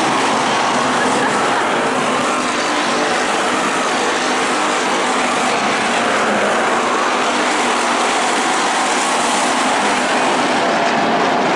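Several dirt-track stock cars racing around the oval, their engines making a loud, steady drone.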